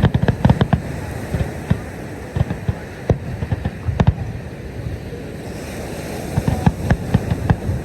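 Fireworks going off, a run of sharp booms and pops at irregular intervals over a steady rushing noise.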